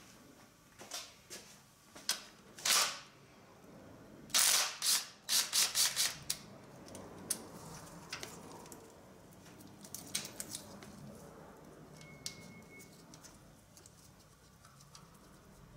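Hand tools and engine parts being handled in a car's engine bay: a series of sharp clicks and clatters, with a quick run of about five scraping bursts around four to six seconds in.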